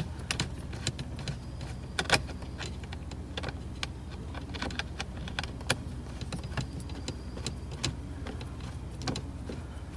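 Scattered small clicks and taps of a Phillips screwdriver working a small screw out of the car's dashboard trim, with a couple of faint brief squeaks, over a steady low hum.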